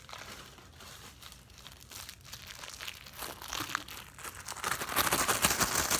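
A plastic bag crinkling while black glitter slime is handled inside it, a rapid run of small crackles and sticky clicks that gets busier and louder about five seconds in.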